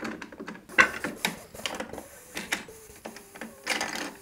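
Plastic internal parts of an opened Nerf Alpha Trooper blaster clicking and knocking at irregular intervals as they are worked loose and lifted out by hand, with the sharpest click about a second in.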